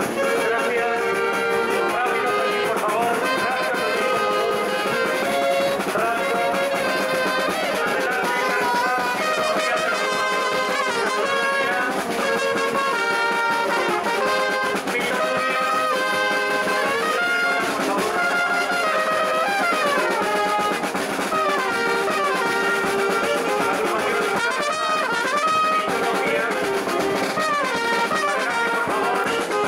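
Brass band music, trumpets and trombones playing a continuous tune.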